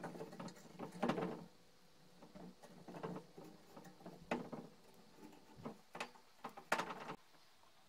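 Hands handling a lawnmower's metal reel cutting cylinder while feeding electrical cable through it: irregular clicks, taps and rustles of metal and cable, with sharper knocks about a second in and near the end.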